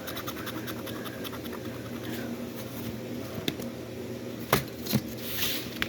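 A scratch-art stylus scratching across a scratch-art sheet in a rapid run of short scratches, then two sharp taps near the end.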